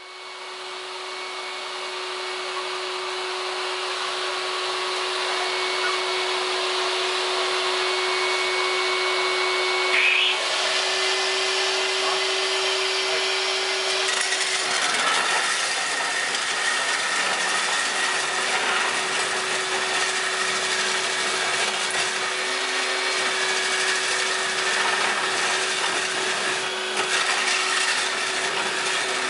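Core drill boring a large hole through a house wall, its motor running steadily under load with a grinding cut. A vacuum hose draws off the dust alongside.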